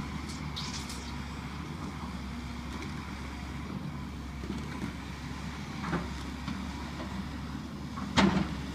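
Hitachi hydraulic excavator's diesel engine running steadily through demolition of a cinder-block building, with a few faint knocks. A sharp knock comes near the end.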